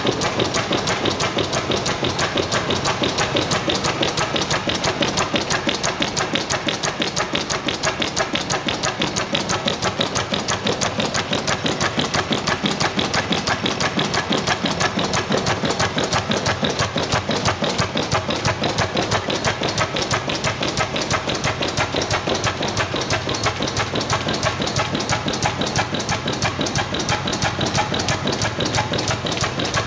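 1904 Deutz E12 stationary gas engine running steadily, a quick, even clatter of sharp beats that keeps the same pace throughout.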